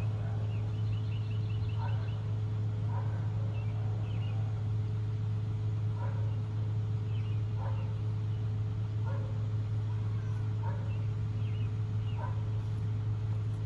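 A steady low machine hum, with short high-pitched animal calls every second or so over it, including a quick run of chirps about a second in.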